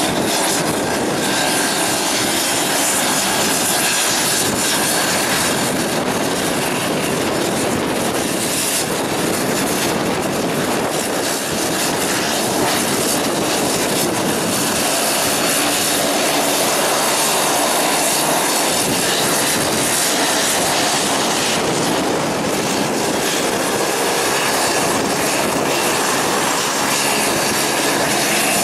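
Steady, loud engine noise of a Pilatus PC-12 single-engine turboprop taxiing close by.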